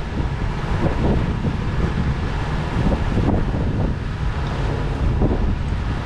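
Wind buffeting the microphone on the deck of a sailing catamaran under way, a steady low rumbling rush with water moving alongside the hulls.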